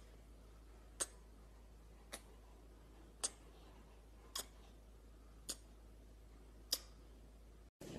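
Sharp, faint clicks evenly spaced about once a second, six in all, like a steady ticking, over a quiet background.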